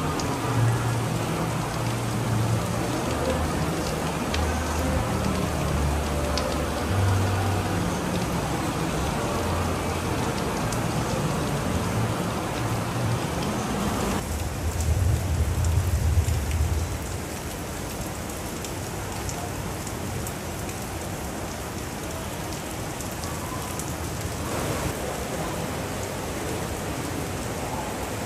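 Steady rain falling, an even hiss. Low, deep booming notes run beneath it and stop about 17 seconds in.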